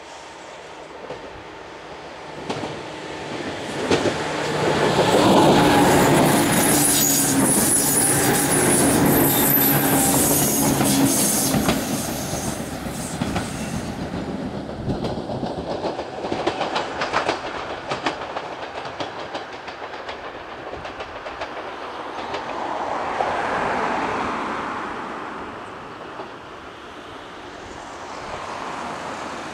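A red JR West 103-series electric train passing close by, loudest a few seconds in, with a thin high squeal of wheels over the rails. As it moves off, its wheels clack rhythmically over rail joints. A second, quieter train passage swells and fades about three-quarters of the way through.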